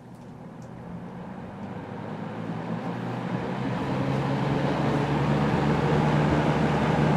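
1974 Kmart K223 box fan, its motor freshly cleaned and re-oiled, starting up on low speed. The motor hum and the air noise of the blades build steadily for about five seconds, then hold even.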